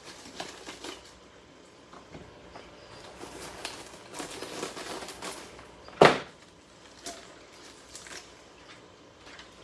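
Kitchen knife working cabbage: scattered light knocks, taps and rustles of the blade and leaves, with one loud sharp knock about six seconds in.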